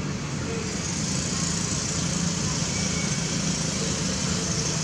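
Steady engine hum, as of a motor vehicle idling, under a steady high hiss that grows louder about half a second in.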